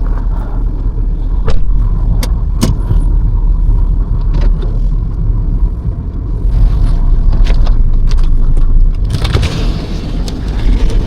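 Car engine running while the car is driven out through deep snow, with a steady low rumble and scattered clicks and knocks.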